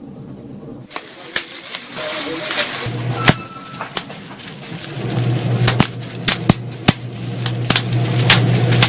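Plastic shockproof packing wrap being crumpled and squeezed, crackling with irregular sharp pops in imitation of a burning fire. A steady low hum runs underneath from about three seconds in.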